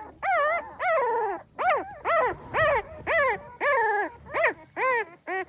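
Pahadi dog puppy whimpering and crying: a string of short high-pitched whines, each rising then falling in pitch, about two a second.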